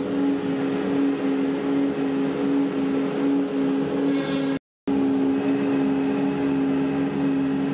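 CNC router spindle cutting a plywood sheet on a DWC5100 gantry router: a steady hum with a slight pulse over an even rushing noise of the cut and dust extraction. The sound cuts out completely for a split second a little past halfway.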